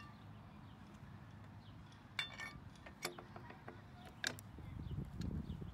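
Cantilever patio umbrella hinge parts being handled and fitted together: three short sharp clicks of plastic and metal pieces knocking into place, then a low rustle of handling near the end.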